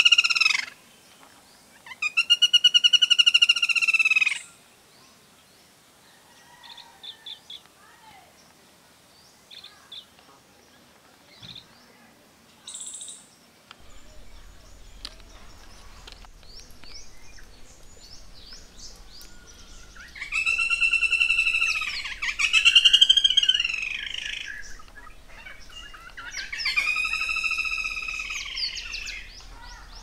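Black-rumped flameback (lesser golden-backed woodpecker) calls, each a fast run of loud repeated notes rising and falling in pitch. There are two calls at the start, then three more from about twenty seconds in, with faint chirps of other birds in the gaps.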